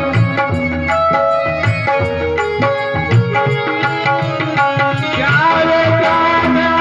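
Devotional song accompaniment: a melody instrument plays an interlude of held, stepping notes over steady hand-drum beats, and a singing voice comes back in about five seconds in.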